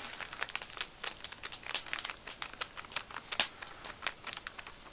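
Flour bag crinkling in the hand as flour is shaken out of it into an enamel mug, with many irregular little crackles.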